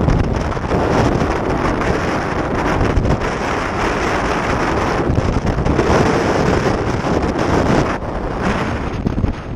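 Loud, steady wind noise on the microphone, with choppy waves splashing around a sea kayak as it is paddled through rough water.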